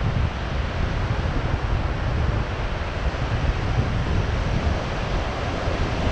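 Wind buffeting the microphone in steady gusts, over the wash of ocean surf breaking on the beach.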